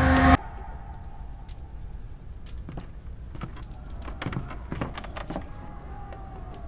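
Loud crowd shouting cuts off abruptly a moment in. It leaves a quiet, low rumbling room with faint scattered clicks and light scuffs.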